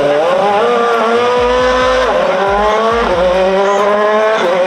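Red Bull RB7 Formula 1 car's engine revving hard as the car pulls away. Its pitch climbs and drops back sharply about three times as it shifts up.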